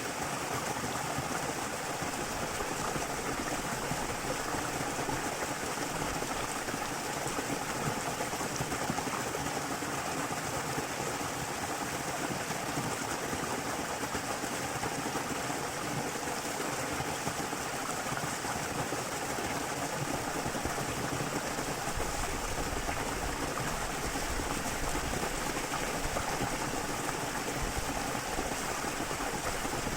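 Steady rush of water falling and running in a small waterfall and stream. A low rumble joins about two-thirds of the way in.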